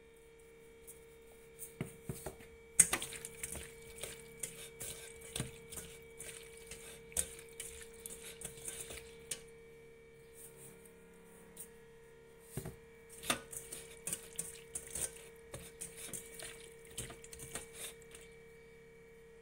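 Squid rings being tossed and mixed by hand with salt in a stainless steel colander: irregular clicking, tapping and knocking of the metal and the wet rings, in two busy stretches with a lull in the middle. A steady faint hum runs underneath.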